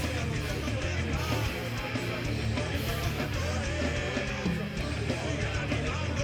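Rock music playing, dense and continuous with a steady bass line.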